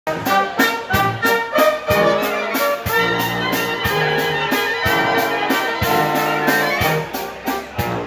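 German Blaskapelle brass band playing a tune: trumpets and trombones carry the melody over low brass notes, with drum and cymbal strokes keeping a steady beat.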